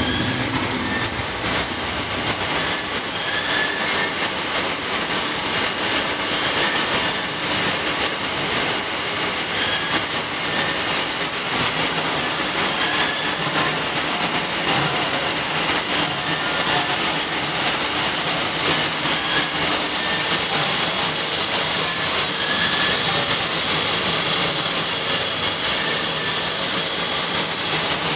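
Heavy-duty lathe turning a large metal drum, the cutting tool shearing metal with a steady, high-pitched squeal.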